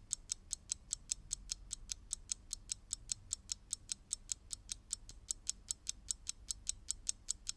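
Ticking-clock sound effect: fast, even, high clicks, about five a second, that stop suddenly at the end.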